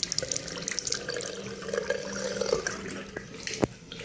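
Armitage Shanks lever tap running into a Portman 21 washbasin, the stream splashing in the bowl and draining away. The splashing eases near the end, and a single sharp click comes just before the end.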